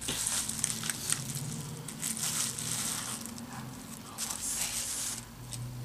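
Plastic wrapping and bubble wrap crinkling and rustling in irregular crackles as a small gift is unwrapped by hand, over a low steady hum.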